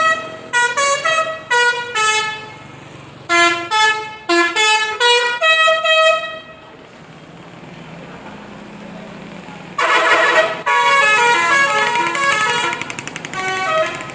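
Indonesian 'telolet' musical bus horn playing a tune of quick stepping notes, with a second tune starting about ten seconds in. Between the two tunes, for about three seconds, only a low engine hum is heard.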